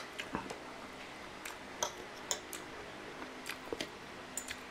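A metal spoon and fork clicking and scraping lightly against a ceramic plate while fish is picked apart: a dozen or so small, irregular clicks.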